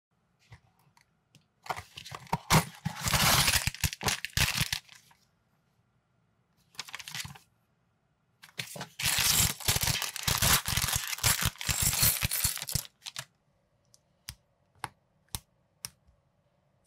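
Packaging of a minifigure set being torn open and crinkled in two long crackling stretches. Near the end come about four separate sharp clicks as plastic LEGO-compatible minifigure parts are snapped together.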